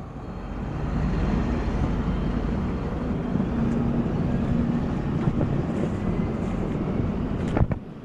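Heavy diesel machinery, wheel loaders and a tractor, running steadily at work, a continuous low engine drone. One sharp knock comes near the end.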